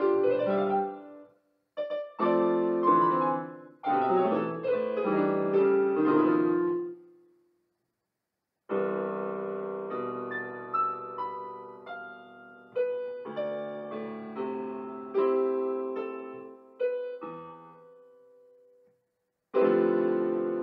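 Electronic keyboard played with a piano voice in a solo piece. A busy run of notes gives way to slower chords that are left to ring and fade. The music breaks off into clean silence twice, about a third of the way in and again near the end, before the next phrase starts.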